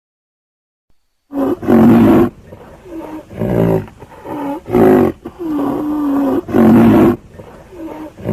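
A large animal calling loudly and repeatedly: about nine drawn-out calls of varying length, starting about a second in, the longest a steady call in the middle.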